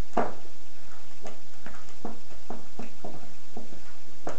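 A spatula stirring and scraping a thick peanut-butter mix in a metal bowl, making a short stroke about three times a second.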